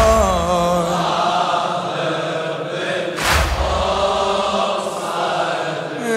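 Mourners' voices chanting a lament refrain, with heavy unison chest-beating strikes (latm), one at the start and one about three seconds in.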